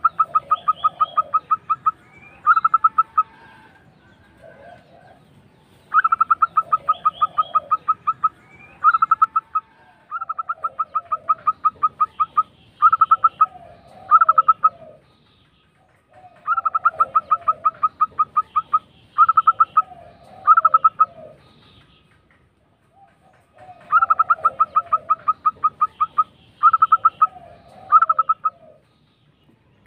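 Zebra dove (perkutut) singing with a rapid rolling trill. Each phrase is a long trilled coo followed by two or three short trilled notes, and the phrases repeat about every six seconds.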